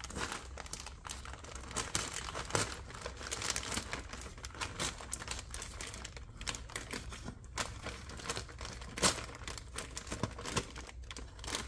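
Shipping bag crinkling and tearing as it is slit open with a pocket knife, with irregular crackles and sharp clicks.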